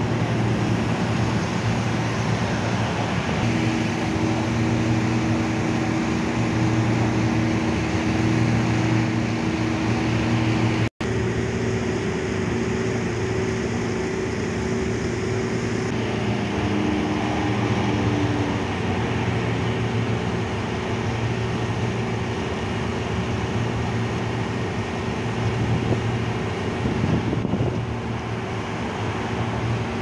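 Steady road traffic noise from a multi-lane highway, with a low, even hum running under it.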